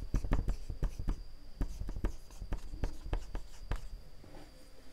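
Dry-erase marker writing on a whiteboard: quick irregular taps and strokes of the marker tip, thinning out and stopping about four seconds in.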